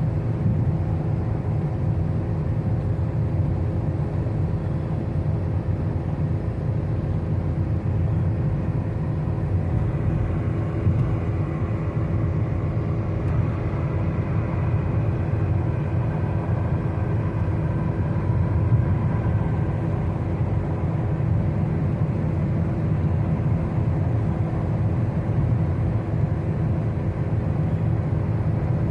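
Car driving on a highway: a steady low rumble of tyres and engine, even throughout, with a few faint steady tones above it.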